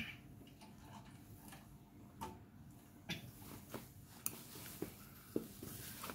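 Faint, irregular clicks and light knocks over low background noise, as mains power is switched on to a DIN-rail voltage protector.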